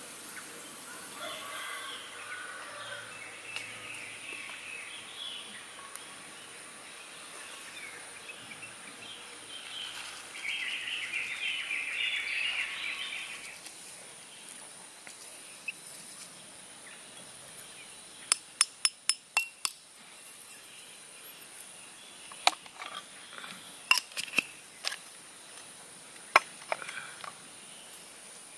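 Pour-over coffee gear being handled: ground coffee poured from a metal grinder cup into a ceramic dripper, a rustle lasting about three seconds, then a quick run of about six sharp taps, the loudest sounds, and a few scattered clinks later. Birds and insects sound in the background.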